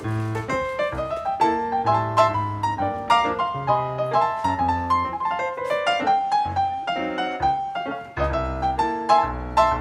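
Background piano music: a steady flow of struck notes over a low bass line.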